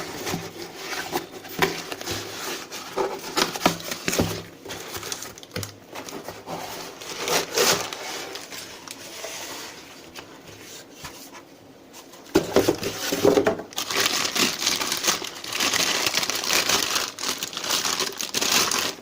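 Packaging being opened and handled: irregular crinkling and rustling with scattered clicks, busiest in a stretch from about two-thirds of the way in until just before the end.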